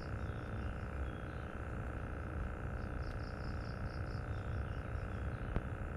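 Outdoor ambience: a steady low rush under a constant hum. An animal call, a run of about eight quick high notes that fade out, comes in about three seconds in. A single sharp click sounds near the end.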